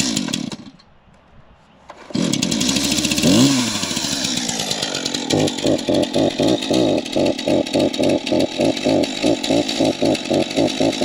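STIHL MS231 C-BE two-stroke chainsaw being started: a brief burst right at the start as it fires and dies, then about two seconds in it catches and runs, revving up and back down. From about five seconds in it runs on with a regular pulsing of a few beats a second.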